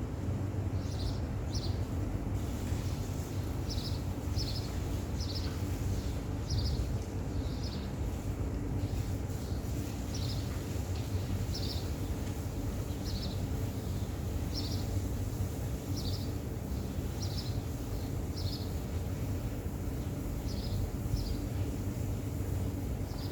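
A small bird chirping: short, high, repeated chirps, often in pairs, about one a second, over a steady low hum.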